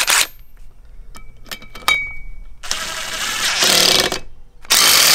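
A DeWalt 20V MAX XR cordless impact driver spins a socket onto a boat propeller's castle nut, tightening it on the prop shaft. It runs in loud bursts: a short one at the start, then two longer ones about halfway through and near the end, with light clicks in between.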